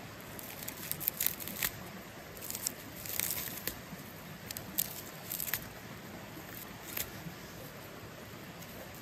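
Crisp snaps, crackles and rustling of fern stems and forest undergrowth being handled, bunched from about half a second in until about seven seconds, over the steady rush of a nearby stream.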